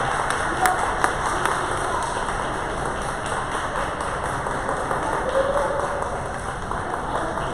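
The last scattered claps of applause fading out within the first couple of seconds, then the steady, echoing background hubbub of a crowded hall.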